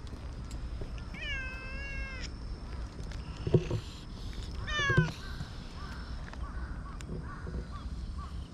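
Black-and-white stray cat meowing twice: one drawn-out meow about a second in, then a shorter meow falling in pitch about five seconds in. A short low thump comes just before the second meow.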